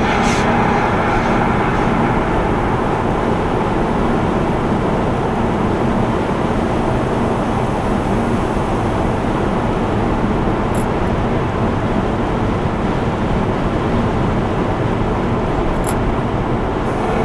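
Steady road and tyre noise with engine hum inside a moving car, picked up by a dashcam microphone. Two faint ticks come about 11 and 16 seconds in.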